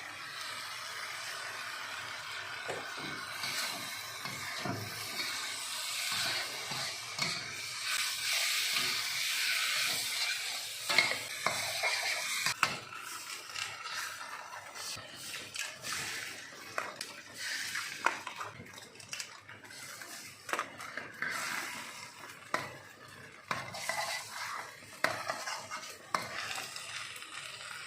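Char kway teow noodles stir-frying in a hot pan: the food sizzles while a metal spatula scrapes and clinks against the pan. The sizzle is strongest in the first half and eases off, leaving sharper clinks and knocks near the end.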